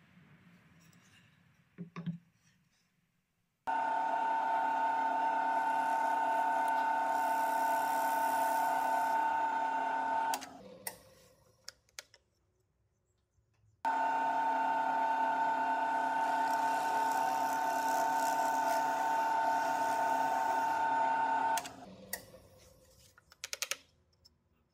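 A power tool's electric motor runs with a steady whine, twice for about seven seconds each, starting and stopping abruptly. A few light knocks of handling follow each run.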